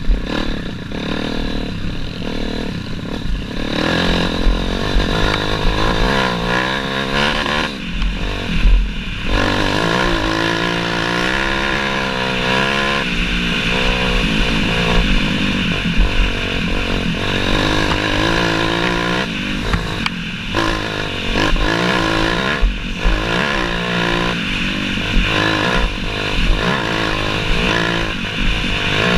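Dirt bike engine ridden along a rough trail, its pitch rising and falling over and over as the throttle opens and closes, with low thuds throughout.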